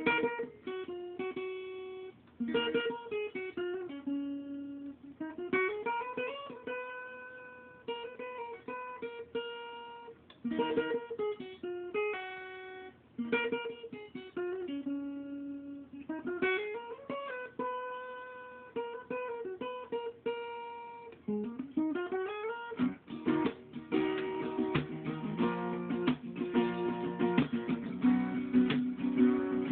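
Acoustic guitar played on its own: a picked melody with notes that slide up the neck, turning near the end to fast strummed chords.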